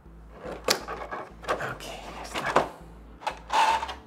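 Clear plastic blister packaging of an action figure being handled, crinkling and crackling in several short bursts, with a brief plastic squeak near the end.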